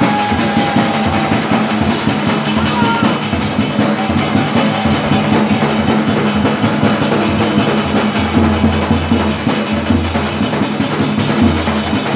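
Gavri folk drumming: a barrel drum beaten continuously with other percussion, loud and without a break.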